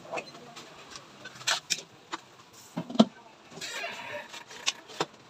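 Several sharp metal clanks from a metal spoon and a metal lid on a large wok. The loudest comes about three seconds in, as the lid is set on the pan.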